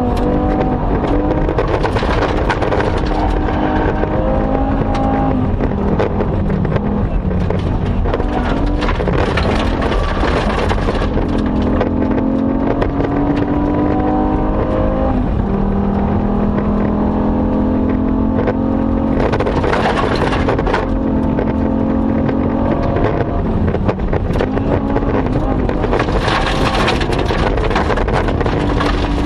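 Rally car engine at full stage pace, heard from inside the cabin, its pitch rising and dropping repeatedly through gear changes. Several spells of loud hiss from the tyres and loose gravel under the car.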